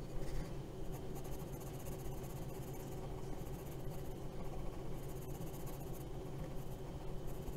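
A 2B graphite sketching pencil scratching on sketchbook paper in short shading strokes, over a faint steady low hum.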